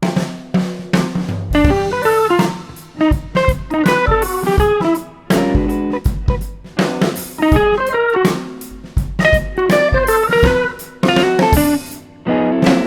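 Background music: plucked guitar melody over a drum kit beat.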